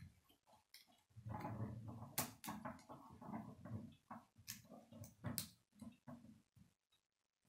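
K'nex plastic rods and connectors being handled and snapped together, a few sharp clicks among soft rattling and rubbing of the plastic parts.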